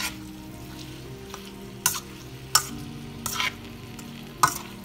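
A utensil stirring beef and bell pepper stir-fry in a frying pan: about four sharp scrapes and clinks against the pan over the food sizzling.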